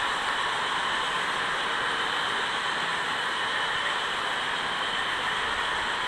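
HO-scale model freight train of loaded coal hopper cars rolling past on the layout's track: a steady, even hiss of many small wheels on rail, with no clicks or changes.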